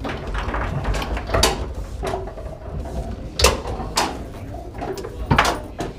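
Foosball table in fast play: sharp clacks of the ball being struck by the plastic men and knocking off the walls and rods, irregular, with the loudest cracks about a second and a half in, around three and a half and four seconds, and again near the end.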